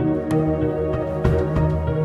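Soft instrumental background music, new-age in style, with sustained notes.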